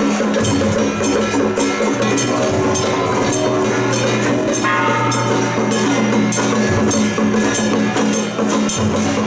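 Temple procession music: fast, dense drum, gong and cymbal strokes over steady held low notes that shift in pitch every couple of seconds.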